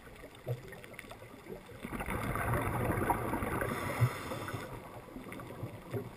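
Underwater sound of a scuba diver breathing through a regulator: a long rush of exhaled bubbles from about two seconds in until nearly five seconds in, with a sharp click near its end, over a faint crackling throughout.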